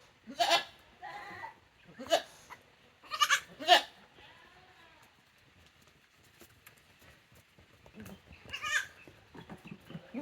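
Tokara goats bleating: about five short calls in quick succession in the first four seconds, then another pair near the end.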